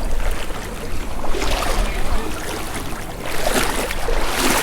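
Feet wading through a shallow creek, splashing and sloshing in the water with each stride, several surges of splashing a second or so apart.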